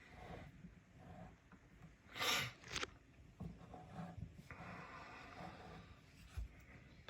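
Faint handling noises on a counter: a short scraping rustle about two seconds in, a smaller one just after, then soft rubbing.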